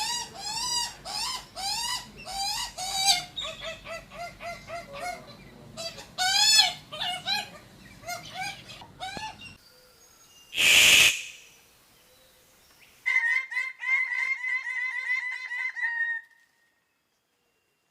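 Bird calls: a run of short, repeated rising-and-falling calls for about nine seconds, a brief hiss around the eleven-second mark, then a fast, rapid series of calls for about three seconds that stops sharply.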